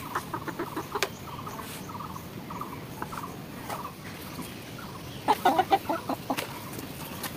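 Chicken clucking in short repeated notes, with a louder run of clucks about five seconds in.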